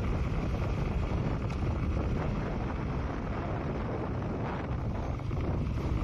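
Wind buffeting the microphone on a moving 125 cc motorcycle, with a steady low rumble of the bike's engine and road underneath.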